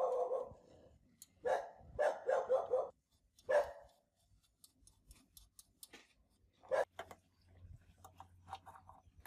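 A dog barking repeatedly in short bursts, with a few light clicks between the barks.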